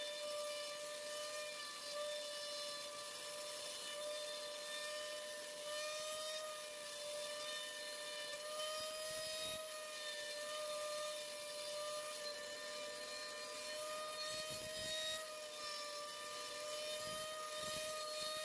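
CNC router spindle running at a steady high whine while its bit cuts into an MDF board, with a constant hiss of cutting.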